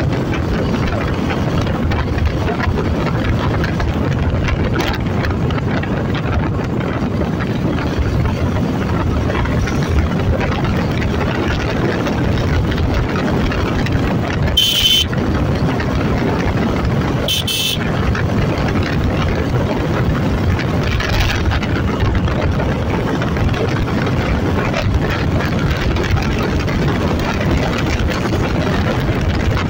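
Suzuki V-Strom SX 250's single-cylinder engine and wind rushing past at highway cruising speed, a steady dense noise. Two short high beeps sound about halfway through.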